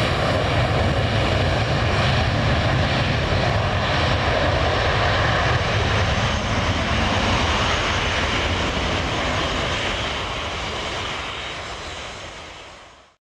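Boeing 737-300 jet engines at take-off power on a departure roll, a loud steady roar with deep rumble that fades away over the last few seconds and then cuts off.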